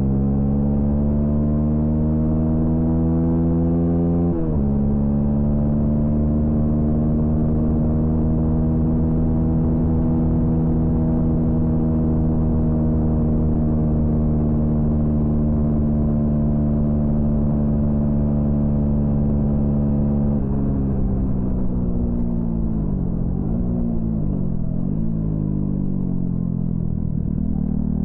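Honda CB125R's single-cylinder four-stroke engine pulling hard under throttle, its pitch climbing, then dropping suddenly at a gear change about four seconds in and holding a steady drone. About twenty seconds in the revs fall, dip and recover twice, then climb again near the end.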